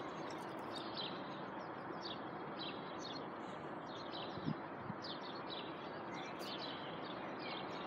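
Small birds chirping repeatedly over a steady outdoor background hiss, with a faint knock about halfway through.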